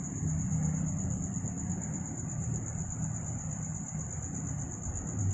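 Night insects, likely crickets, trilling in one continuous high-pitched drone, over a low steady rumble.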